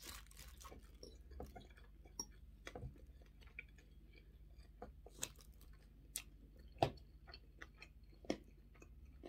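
A person chewing a mouthful of fried spaghetti with sausage close to the microphone, quietly, with scattered short clicks and smacks.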